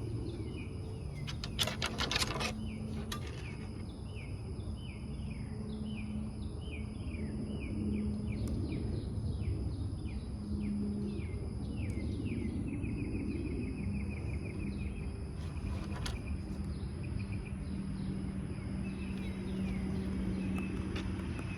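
Outdoor ambience of songbirds. One bird repeats short falling chirps about twice a second, then breaks into a rapid trill about halfway through, over a steady high-pitched insect buzz and a low steady hum. A few sharp clicks come near the start.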